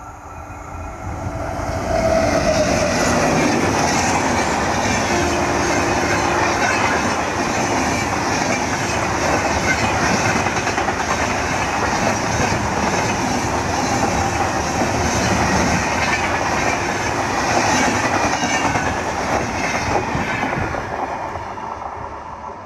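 Diesel-hauled express passenger train passing close at speed. The rolling roar of locomotive and coaches builds over the first two seconds, holds loud while the coaches run past, and fades near the end.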